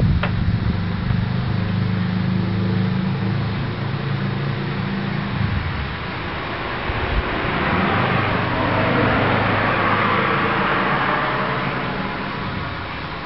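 Road traffic: a vehicle engine hums for the first half, then a passing car's tyre noise swells and fades in the second half. A single faint click comes just after the start.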